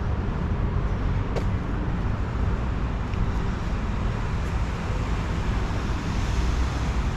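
Steady road traffic: cars passing on the road close by, a continuous low rumble that swells a little near the end.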